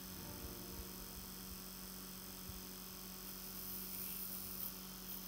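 Steady, low electrical mains hum. About three seconds in, a faint high hiss joins it as the soldering iron melts solder and rosin flux onto an AA battery's terminal, giving off smoke.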